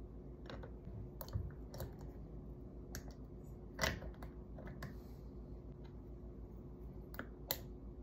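Lid being fitted and pressed onto a glass jar packed with vegetables: a scattered series of small clicks and taps, with one louder knock about four seconds in, over a steady low hum.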